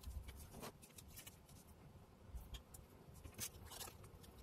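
Near silence, with a few faint taps and rustles of hands handling small paper craft pieces on a cutting mat.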